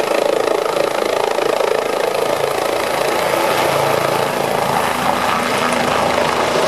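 Air ambulance helicopter's turbine engine and rotor running steadily on the ground.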